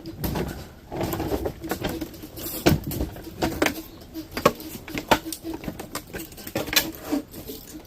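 Irregular clicks, knocks and rattles of dehumidifier scrap metal being handled and pulled apart, with a low hum coming and going underneath.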